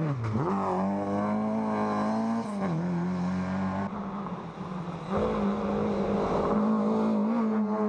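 Rally car engines at full throttle: one car accelerates hard out of a hairpin, its engine note dropping briefly at two gear changes, then after a cut about four seconds in another car's engine is heard at high revs as it approaches.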